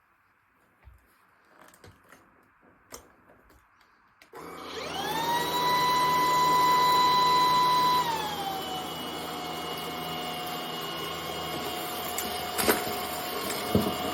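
Cordless stick vacuum cleaner switched on about four seconds in: its motor spins up to a steady high whine. About four seconds later it drops to a lower, quieter speed and runs on steadily. A few faint clicks come before it starts, and a sharp click near the end.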